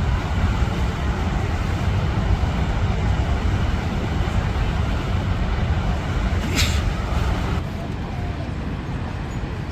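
Rhine Falls' waterfall roaring steadily, a thick rush of falling water heavy in the low end. About six and a half seconds in there is a brief high-pitched squeal, and the rush gets a little duller about a second later.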